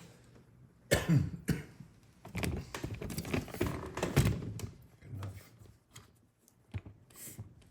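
A thunk, then a run of irregular light knocks and clicks: small lock parts and tools being handled and set down on a workbench.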